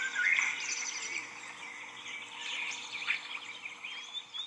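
A chorus of songbirds chirping and singing, several birds calling over one another.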